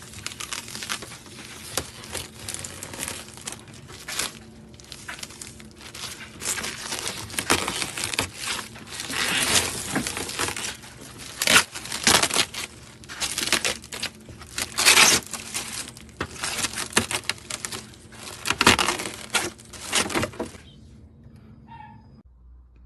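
Plastic or paper packaging crinkling and rustling in irregular bursts as it is handled, stopping shortly before the end.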